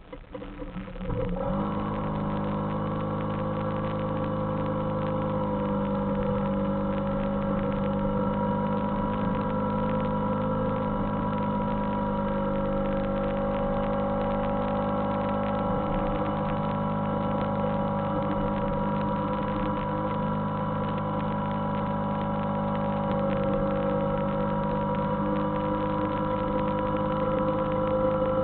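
Suzuki Samurai engine pulling steadily under load while the vehicle crawls up a rocky trail. Its note rises about a second and a half in, then holds nearly level, dipping slightly around two-thirds of the way through.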